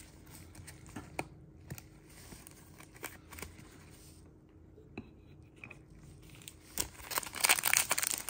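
Faint clicks of trading cards being handled, then from about seven seconds in a Donruss football card pack's foil wrapper crinkling loudly as it is torn open.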